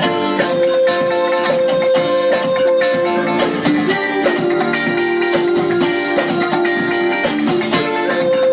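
Live jazz-fusion band playing: electric guitar, electric bass, keyboards and drum kit together, with held notes changing every second or so over a steady drum beat.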